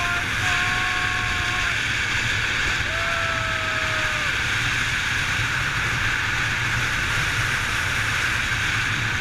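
Steady rush of wind over the camera's microphone from gliding down a long zipline at speed. Twice in the first half, a brief steady whistling tone sounds over it, each one dipping slightly in pitch as it ends.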